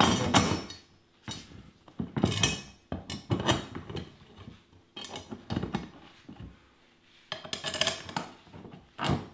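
Steel frame tubing and bolts clinking and rattling as the U-shaped tube is worked onto a plastic spreader hopper and the bolts are threaded in by hand, in several separate clatters a second or two apart.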